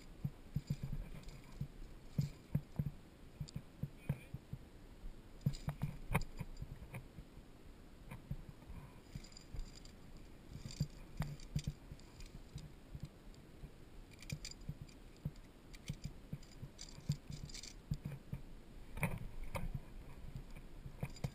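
Via ferrata climbing gear and movement: scattered sharp metallic clinks, like carabiners striking the steel safety cable, among irregular low knocks and scuffs from the climber against the rock.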